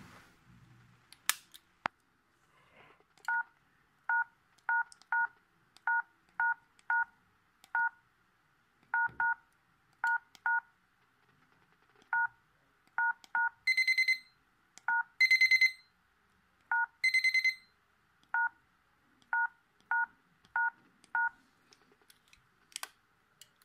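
Panasonic VS3 mobile phone's keypad tones: a string of about two dozen short two-tone beeps as keys are pressed at an uneven pace. Three longer, louder, higher beeps fall among them about two-thirds of the way through.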